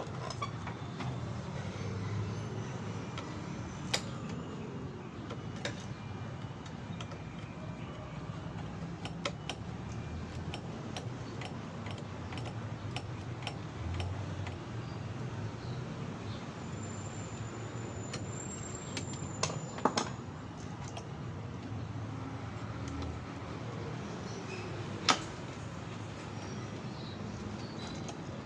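Steady low hum with scattered sharp clicks and taps, the loudest near the end, and a brief thin high whistle about two-thirds of the way through.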